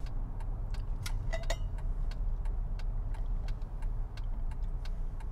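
Car cabin noise: a steady low rumble from the engine and road, with a run of light, evenly spaced ticks about three a second.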